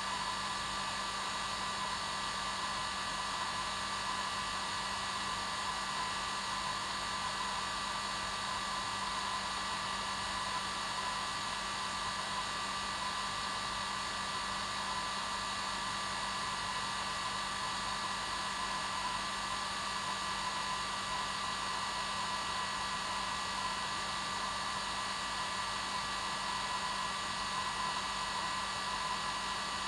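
Hair dryer running steadily, a constant whooshing airflow with a steady motor hum.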